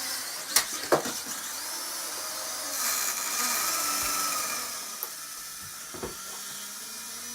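Protocol Dronium Zero toy quadcopter's small electric motors and propellers whirring in a high whine, louder for a second or so about three seconds in, with a couple of sharp clicks near the start. The rear two propellers spin much faster than the front two, because the propellers were put back on the wrong arms and push air upward.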